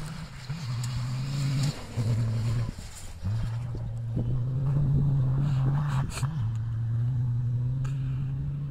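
A VW 2.5 TDI five-cylinder turbo-diesel engine working hard as its vehicle drives across a dirt field, holding a steady high-revving drone. The note dips briefly about two and three seconds in before picking up again.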